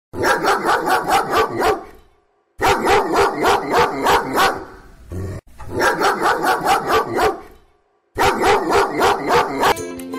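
A dog barking in quick runs of about eight barks each, four runs with short pauses between them.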